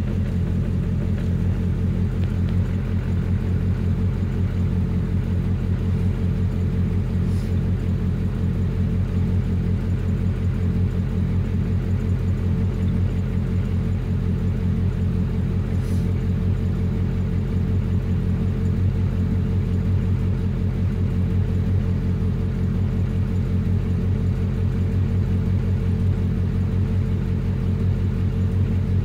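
Datsun 720 pickup's carbureted 2.4-litre Z24 four-cylinder engine idling steadily while warming up after a cold start, heard from inside the cab.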